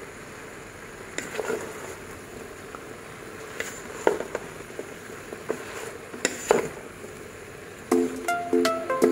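Wooden spatula stirring broccoli and cauliflower florets in a cooking pot: scattered knocks and scrapes of the spatula and vegetables against the pot over a steady low hiss. Background music with plucked notes comes in near the end and is louder than the stirring.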